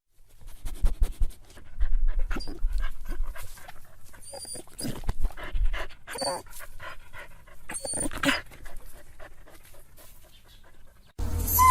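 Dog panting, with a few short barks or yelps scattered through. Near the end a louder dog comes in, whining in a run of falling yelps.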